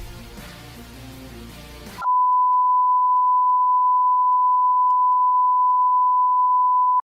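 Background music for about two seconds, then a loud, steady electronic beep on one unchanging pitch, held for about five seconds and cutting off suddenly.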